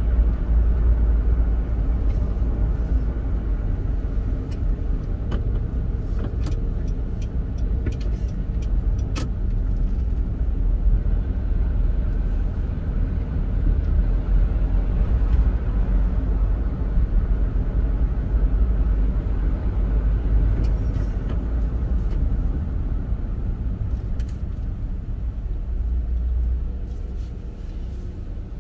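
Car driving in city traffic: a steady low rumble of engine and tyres on the road, with a few faint clicks about a quarter of the way in. The rumble drops off near the end as the car slows to a stop.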